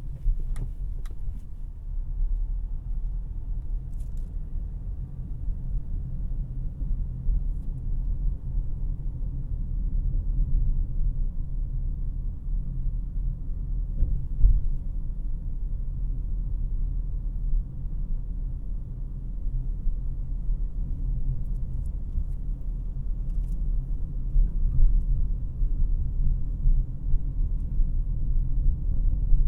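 Cabin noise inside a 2018 Honda CR-V LX on the move: a steady low rumble of road and engine noise, with a few faint ticks.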